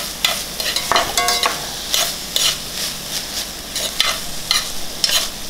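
Metal spoon stirring and scraping diced onions and bell peppers sautéing in oil in an enamelled cast-iron pan, sweating the peppers: a steady sizzle under irregular scrapes, with a short ringing note about a second in.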